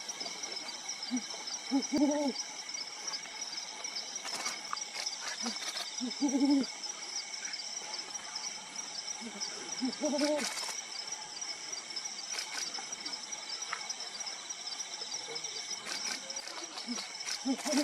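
Brown wood owl hooting: four short bursts of deep, reverberating hoots, each a quick lead-in note then a longer, louder hoot, repeated about every four seconds.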